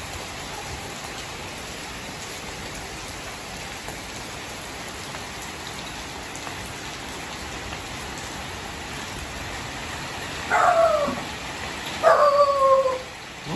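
Steady rain falling. Near the end, a dog barks twice, each bark falling in pitch, the second one drawn out to about a second.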